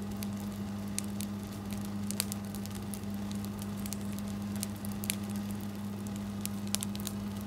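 Campfire of dry sticks and brush burning, crackling with sharp, irregular pops and snaps over a steady low hum.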